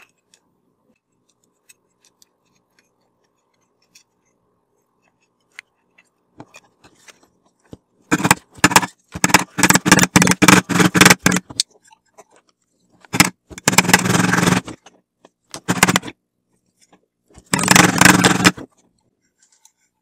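Rubber mallet tapping a vacuum cleaner motor's metal end cover down onto the housing to seat it. The blows come in four runs of quick taps with short pauses between them.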